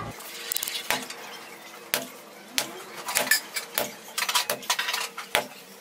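Kitchen handling sounds: a soft rustle as a bowl is covered with a towel and plastic wrap, then irregular light knocks and clicks as a yeast dough is kneaded and slapped on a floured tabletop.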